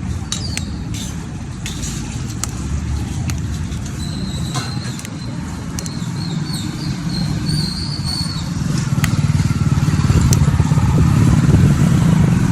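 Street traffic: a steady low engine rumble from passing motor vehicles, with scattered clicks and knocks. The rumble grows louder near the end.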